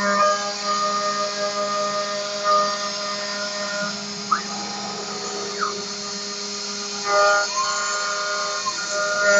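CNC mill cutting V95 high-strength aluminium alloy with a 12 mm end mill at 1 mm depth of cut, giving a steady whine made of several held tones. There are two brief pitch sweeps near the middle, and the cut grows louder for a moment around seven seconds in.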